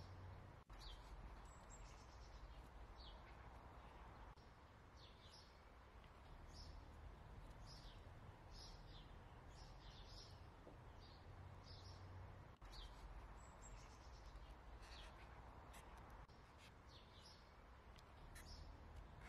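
Faint chirping of small birds, short high chirps repeating every second or so, over a low steady background hum.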